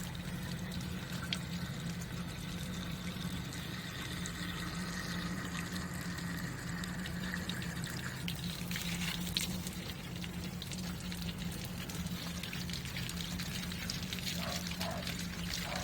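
Water being poured into the radiator of a 1952 Lister D engine and trickling out through a serious leak. The pouring sound eases about eight seconds in, with a steady low hum underneath.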